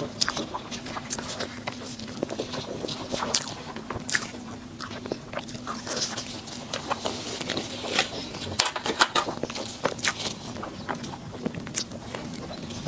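Close-miked mouth sounds of someone eating a sweet dessert: irregular bites and chewing with many small crackling, sticky clicks, over a faint steady hum.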